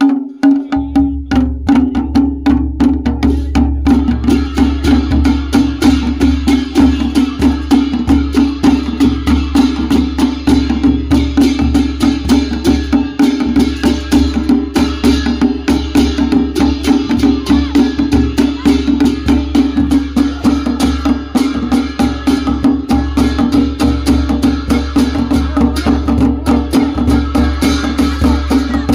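Traditional Pahadi folk drumming: a large leather-laced drum and small kettle drums beaten with sticks in a fast, steady rhythm, with a steady drone note underneath.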